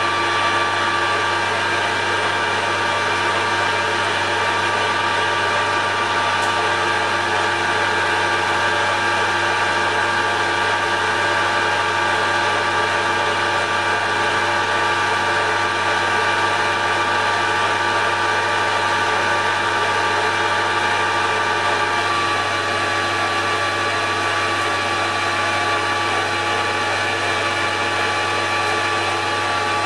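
Metal lathe running steadily under power, turning a steel shaft while the mill scale is cut off it. Its steady whine of several tones shifts slightly about two-thirds of the way through.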